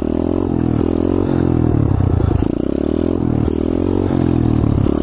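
2015 SSR 125cc pit bike's single-cylinder four-stroke engine revving under throttle while riding, its pitch climbing and falling back several times as the throttle is opened and eased.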